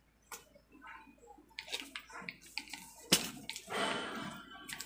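Handling noise from wrapping bicycle bar tape around an aero bar: scattered small clicks and rustles, a sharp knock about three seconds in, then about a second of scratchy rustling.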